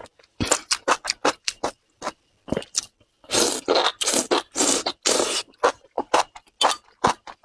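Chewing of spicy enoki mushrooms: a quick run of short crunching clicks, with a few longer, noisier chewing bursts about halfway through.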